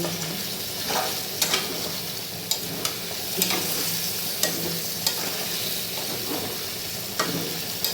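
Food sizzling as it fries in a pan while it is stirred, with the utensil clicking against the pan about once a second.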